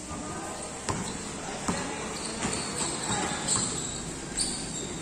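A basketball bouncing on a hard court floor during a game: two sharp thuds about a second in and again shortly after, with a few lighter knocks later.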